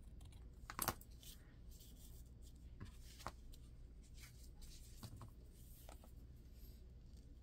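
Faint rustling and handling of paper, with a few short crinkles and clicks scattered through, the loudest just under a second in.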